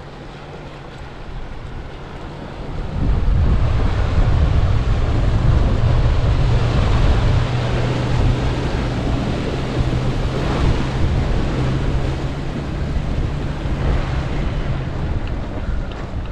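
A vehicle driving, with a steady low engine hum under rushing wind and road noise that gets much louder about three seconds in.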